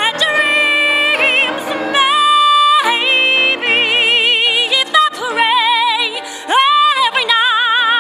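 A woman singing with grand piano accompaniment: a run of long held notes, those in the second half carrying a wide vibrato.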